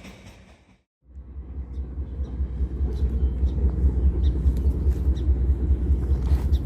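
A train sound fades out into a brief gap of silence, then a loud, steady, fluttering low rumble sets in, with scattered light clicks above it.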